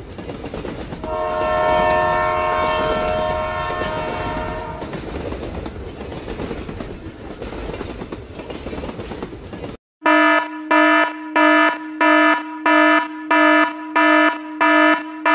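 Sound effects of a train running, with a rumbling clatter and a multi-tone train horn sounding from about one second in for about four seconds. Near ten seconds the rumble cuts off abruptly. A railway level-crossing warning bell follows, dinging evenly about once every 0.7 seconds over a steady tone.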